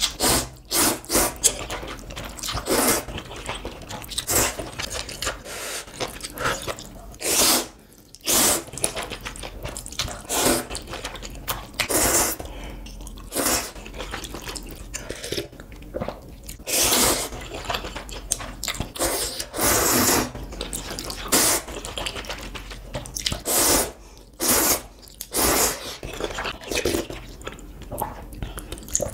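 Close-miked slurping of instant ramen noodles and spicy broth: many short, sharp slurps at an uneven pace, some longer and drawn out, with wet chewing between them.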